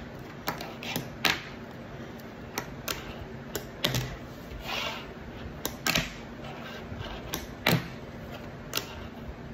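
Fingerboard clacking and tapping on a wooden tabletop: about a dozen sharp, irregularly spaced clicks, the loudest about six seconds and nearly eight seconds in.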